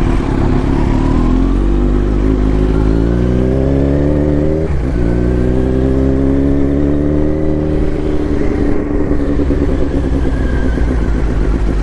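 Kawasaki Z900's inline-four engine through an Akrapovic exhaust, revving up under acceleration. About five seconds in there is a brief dip as it shifts up a gear, then it pulls up again, levels off and eases slightly near the end.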